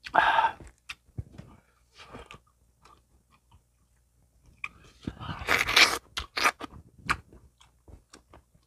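Close-miked eating: a person biting and chewing chicken, with loud crunchy bursts right at the start and again about five to six seconds in, and smaller chewing clicks between.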